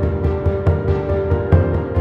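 Background music: held notes over a steady, driving low drum beat, with the held notes changing pitch about one and a half seconds in.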